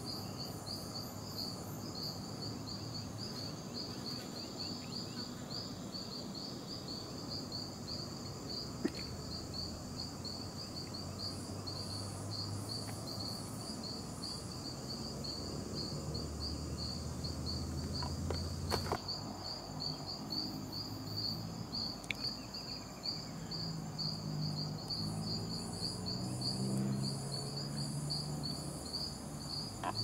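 Rainforest insect chorus: one insect chirps over and over at a single high pitch in a steady, even rhythm, while fainter, higher buzzing from other insects comes and goes. A low hum swells softly in the second half.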